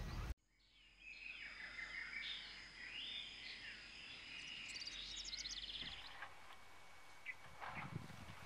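Faint rural ambience of birds calling and chirping over a steady, high insect drone, fading in after a brief silence, with a quick high trill about five seconds in and a few soft knocks near the end.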